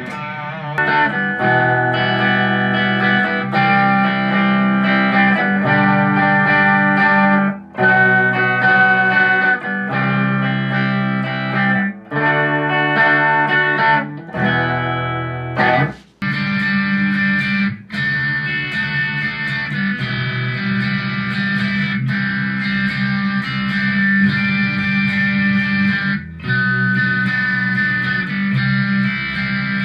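Squier electric guitar played through an M-VAVE MK-300 multi-effects preset: sustained chords ringing and changing, with brief pauses between phrases about four times.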